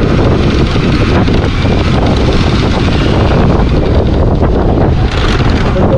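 Steady rush of wind over the microphone of a moving motorcycle, with its running engine and road noise underneath.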